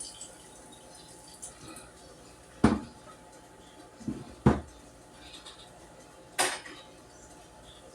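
Cookware and utensils knocking and clanking: four separate clanks spread over several seconds, the last one longer and higher-pitched.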